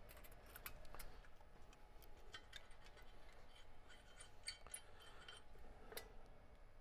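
Faint, scattered clicks and light metal taps of parts and hand tools being handled: an exhaust header being fitted to the engine and its nuts and fasteners picked up.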